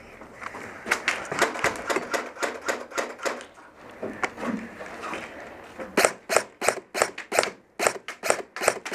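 Airsoft guns firing rapid single shots, sharp clicks several a second. One run of shots starts about a second in, and a faster, louder run fills the last three seconds.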